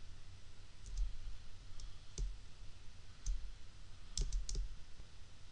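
Computer mouse button clicks: single clicks roughly every second, then a quick run of three about four seconds in.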